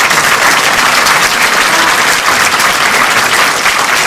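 Audience and actors applauding: a dense, steady round of many hands clapping.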